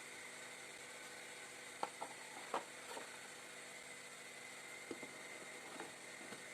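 A steady faint hiss with several short, light knocks and clicks, bunched around the middle.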